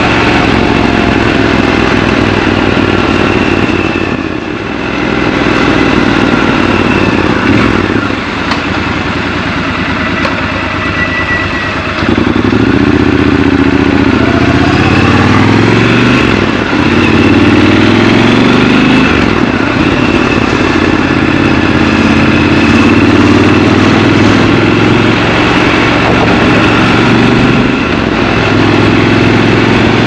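Triumph Scrambler 1200 XC's 1200 cc parallel-twin engine running under way, with a quieter, lower stretch, then, from about twelve seconds in, its pitch rising and falling several times as it accelerates, before it settles to a steady run.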